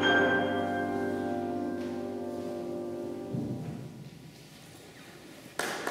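Final chord of violins and piano held and slowly fading, dying away after about three and a half seconds. A short quiet follows, and audience applause breaks out just before the end.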